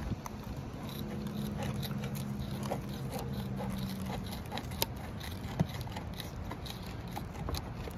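Asphalt shingle being cut by hand with a cutting tool, a run of small crunching snips and clicks, with two sharper clicks around the middle. A low steady hum runs under it from about one to four seconds in.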